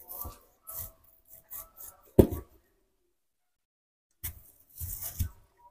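A small knife cutting into a whole pear: a series of short crunching cuts and knocks, the loudest about two seconds in, followed after a pause by another cluster of cuts.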